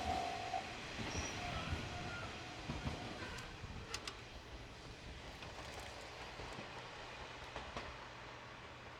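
A JR Dosan Line diesel train's running noise fades steadily as it pulls away from the level crossing. A brief steady squeal comes in the first half-second, and a few sharp clicks follow as it recedes.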